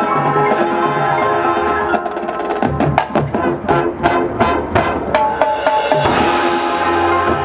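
High school marching band playing: held brass chords over drums, broken about three seconds in by a run of sharp, separated percussion hits, before the held chords return near the end.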